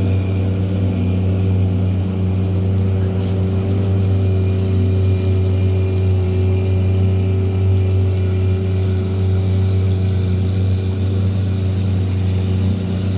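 Motorboat engine running at a steady speed, heard from on board, with an even low hum that holds without change.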